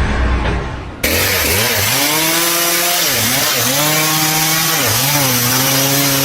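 A small engine-driven power tool starts abruptly about a second in and runs at high revs over a loud hiss. Its pitch sags and recovers several times, as if bogging under load while cutting.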